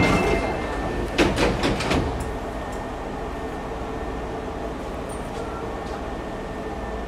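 Sliding doors of a Hankyu 5300-series train shutting: a knock right at the start, then a cluster of thuds about a second in. After that, the stationary train's steady hum.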